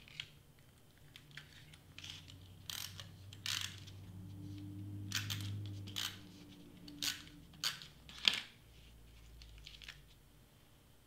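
Adhesive tape runner and cardstock pieces being handled on a cutting mat: a scattered series of sharp clicks and short paper scrapes.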